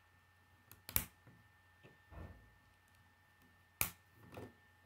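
Plastic K'nex rods and connectors being snapped together by hand: two sharp clicks, about a second in and near four seconds, with softer handling and rubbing of the plastic pieces in between.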